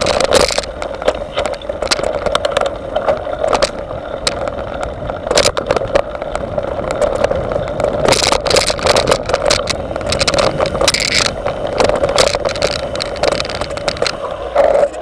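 Mountain bike rolling fast over a rough dirt trail, heard through a handlebar-mounted camera: a steady rolling rumble from the tyres with many sharp knocks and rattles as the bike hits bumps and roots.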